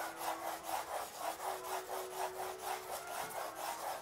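Graphite pencil scratching back and forth on paper in quick diagonal hatching strokes, an even rhythm of about five strokes a second.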